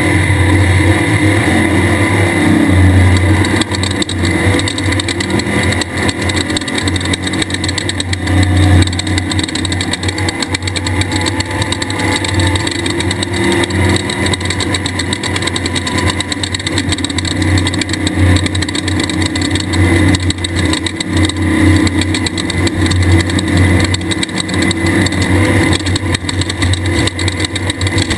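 Loud engine of a 1/2-1600 class desert race car, an air-cooled 1600cc Volkswagen, running hard with the revs rising and falling.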